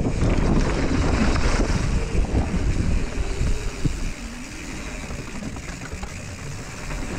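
Wind rushing over an action camera's microphone as a mountain bike rolls fast down a dirt trail, with tyre rumble and rattling knocks from the bumps. The noise eases somewhat about four seconds in.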